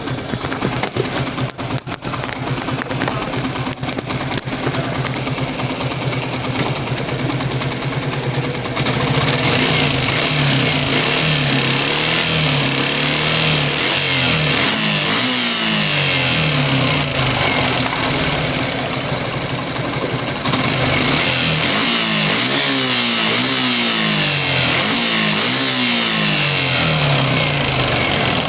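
Suzuki Gixxer single-cylinder carburetted motorcycle engine running, first at idle, then revved up and down in repeated blips from about nine seconds in. It has a rattling noise at idle that the mechanic puts down to a worn timing chain needing replacement.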